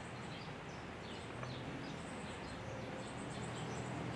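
Outdoor ambience in a pause with no speech: small birds chirping again and again over a steady background hum, with a low hum underneath that grows a little stronger about a second and a half in.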